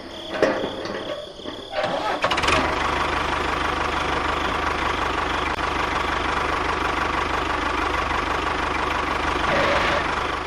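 A tractor engine starting about two seconds in, then running steadily.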